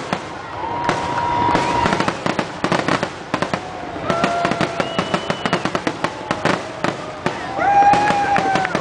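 Fireworks display going off: a steady run of sharp pops and crackling bangs, with several whistles about a second long that rise, hold and then fall away.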